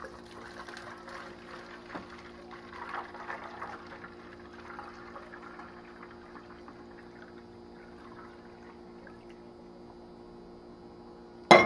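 Homemade sugar-water hummingbird nectar poured through a small funnel into a feeder, trickling and fading out over about the first half. A steady electrical hum runs underneath, and there is a sharp knock near the end.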